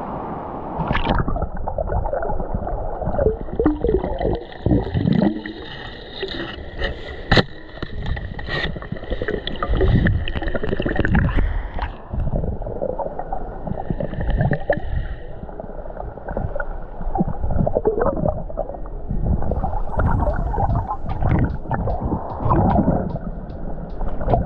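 Water gurgling and sloshing close to the microphone, with scattered knocks and bumps throughout.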